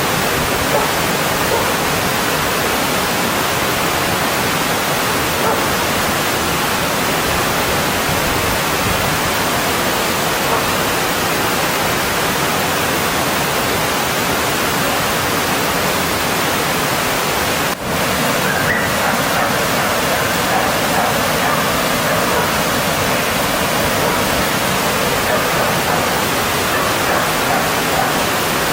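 Mountain stream water rushing over rocks: a steady, loud wash of noise. About two-thirds of the way through it dips for an instant and then carries on with a slightly changed tone.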